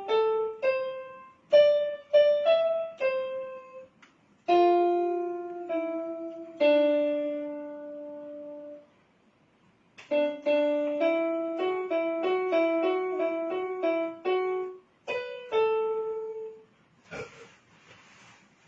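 Piano playing a single-line melody note by note, with short stops between phrases, the halting pace of someone practising a tune. A short noise follows near the end.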